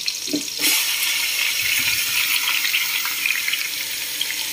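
Wet raw chicken pieces dropped into hot oil with frying onions: a loud, steady sizzle and spatter that starts suddenly about half a second in and keeps going.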